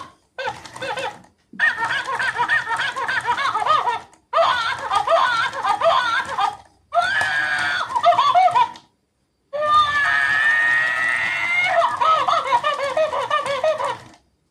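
Talking monkey toy's high-pitched electronic voice giggling and chattering in about five short stretches, each stopping abruptly into silence.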